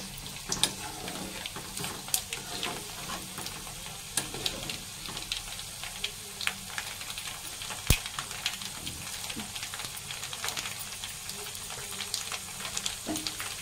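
Hot oil sizzling in a metal kadai as a tempering of garlic cloves, curry leaves, cumin, chana dal and mustard seeds fries, with a metal spoon stirring through it. The sizzle is a steady hiss dotted with frequent crackles and pops, the loudest a single sharp click about eight seconds in.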